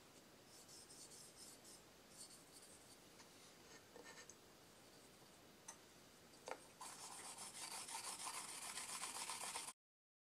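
Polishing charcoal rubbed with water over a cured coat of urushi lacquer on a wooden scabbard. A few short scraping strokes with light knocks give way, in the second half, to louder continuous brisk rubbing that breaks off suddenly.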